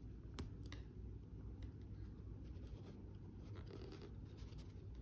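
Faint scratching and light clicks of metal double-pointed knitting needles as picked-up stitches are slipped onto a needle, with two sharper clicks about half a second in.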